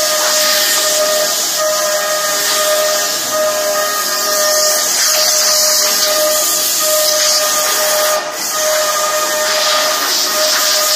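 CNC router spindle cutting wood with a steady high whine, under a loud hiss of compressed air from an air nozzle blowing chips off the workpiece. The hiss drops out briefly about eight seconds in.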